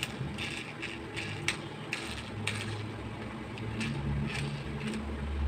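Light clicks and taps from an angle grinder's armature and multimeter test leads being handled on a workbench, with a low hum that grows louder near the end.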